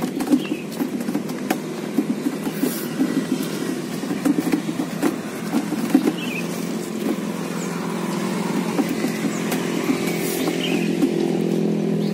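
Steady electric hum of a homemade backpack electrofishing unit (battery and inverter), getting a little louder near the end, with footsteps crunching on a gravel path in the first half.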